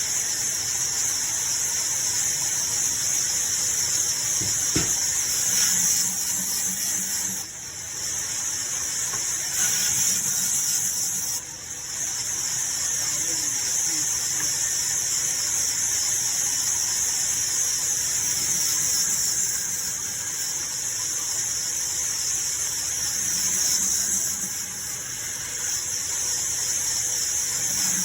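High-pitched, steady whine of a power tool working wood, dipping briefly twice.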